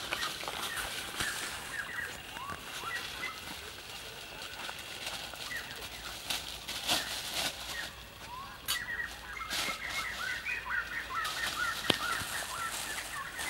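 Birds chirping in many short, quick calls, thicker in the second half, with a few sharp crinkles from a plastic bag being handled.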